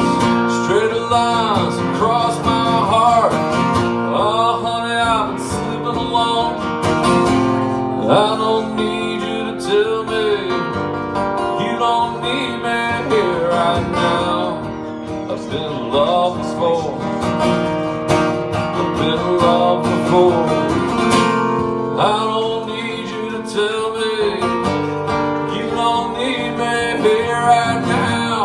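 Acoustic guitar strummed and picked in a live country-style song, with a singing voice at times over it.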